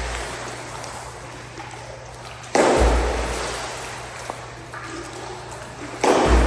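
Two heavy splashes of someone jumping into an indoor pool, one a few seconds in and one near the end, each a sudden deep plunge whose noise fades slowly in the echoing pool hall.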